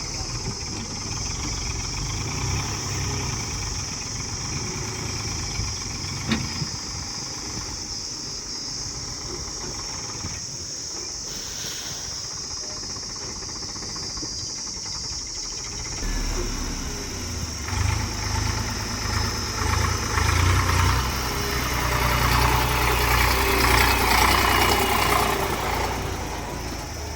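A heavy machine's engine running, a steady low rumble that gets louder and heavier about two-thirds of the way in, is loudest near the end, then eases off.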